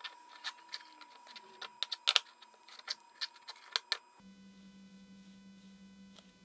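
Light metallic clicks and clinks of small steel lathe-chuck parts being handled and fitted against a steel ring: a dozen or so sharp, irregular ticks that stop about four seconds in, leaving a faint hum.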